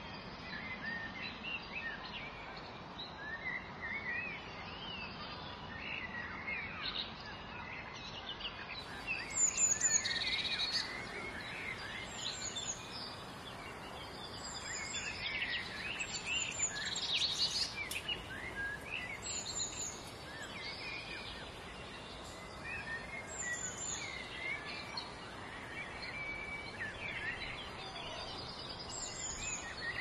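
Several wild songbirds chirping and warbling over a steady outdoor hiss. From about nine seconds in, a high, thin phrase repeats every few seconds.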